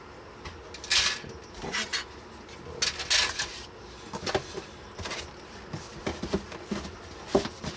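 Grey plastic Warhammer 40k Sector Imperialis terrain sprues being shuffled and rattled in their cardboard kit box: two brief rustling scrapes, then a few light plastic knocks.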